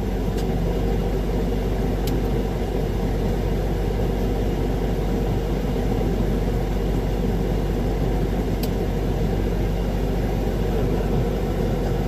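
Ready-mix concrete truck's diesel engine running steadily with the mixer drum turning, discharging concrete. A few faint ticks sound over the rumble.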